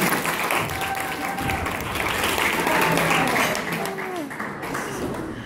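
Audience applauding, with voices calling out over the clapping; it dies down about four and a half seconds in.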